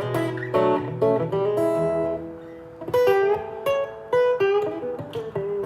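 Acoustic guitar played during a soundcheck: a few strummed chords, then single picked notes that ring out from about three seconds in.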